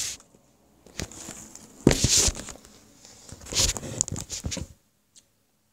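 Handling noise of a phone camera being moved and set in place: a light knock, then a couple of short rustling, scuffing bursts on the microphone, after which the sound cuts out to dead silence near the end.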